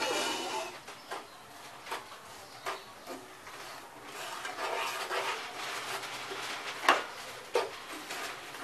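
Spatula stirring and scraping semolina in ghee across the bottom of a pot, with a few sharp knocks of the spatula against the pan. The scraping grows steadier about halfway through.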